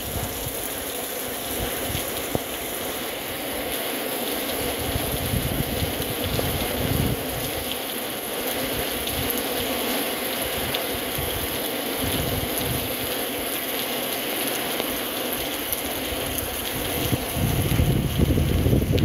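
Steady rain falling, with gusts of wind rumbling on the microphone that come and go and grow stronger near the end.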